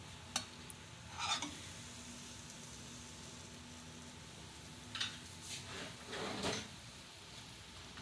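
Light kitchen handling as a stuffed pita pocket is set into a nonstick frying pan and pressed down by hand with a spoon: a small click, then brief knocks and scrapes on the pan about a second in, at about five seconds, and a longer scrape around six seconds.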